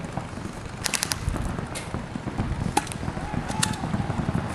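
Airsoft guns firing in a close skirmish: a quick burst of about four sharp snaps around a second in, then single shots spaced about a second apart.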